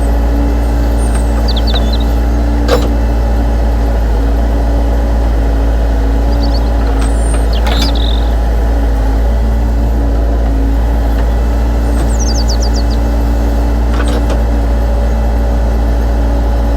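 A radio-controlled excavator running, a steady machine drone that holds the same pitch throughout. A few faint clicks sound over it, and birds chirp briefly a few times.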